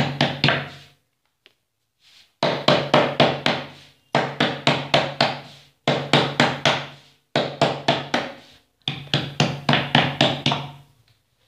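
Hands slapping jowar roti dough flat on a round wooden board. The slaps come in quick runs of about five a second, each run lasting a second or two, with short pauses between runs.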